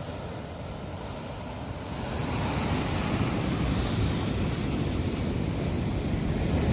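Sea surf washing on the shore, with wind buffeting the microphone; the noise grows a little louder about two seconds in.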